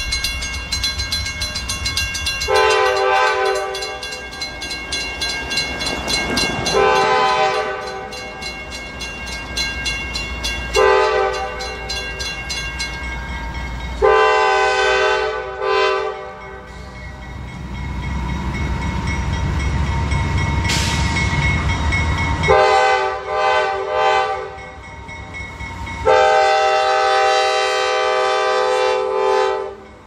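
CSX GE diesel locomotives' air horn sounding a series of multi-note blasts for a grade crossing, the last one held for several seconds as the engines reach it. A crossing-gate bell rings rapidly through the first half, and the locomotives' diesel engines rumble louder as they draw near.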